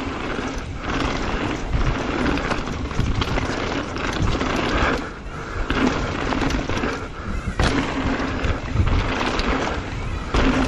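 Mountain bike rolling fast down a dry dirt and rock trail, picked up by the rider's own camera: continuous tyre rumble and crunch with the bike rattling over bumps. The level dips briefly a few times.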